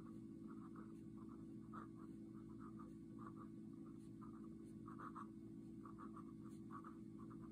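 Pelikan M400's extra-fine 14K gold fountain pen nib scratching faintly across legal-pad paper in quick, irregular short strokes as letters are written, over a steady low hum.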